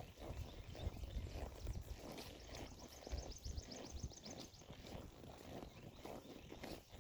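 Footsteps of a walk outdoors, an even tread a few steps a second. From about two and a half to four and a half seconds in, a bird trills: a fast run of short, high notes.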